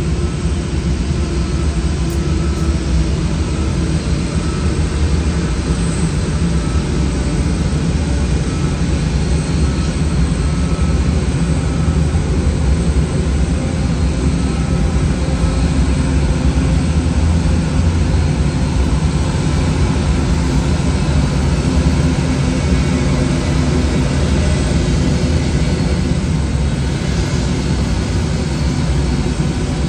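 Airbus A380 jet engines running steadily close by: an even, loud low rumble with a thin high whine over it.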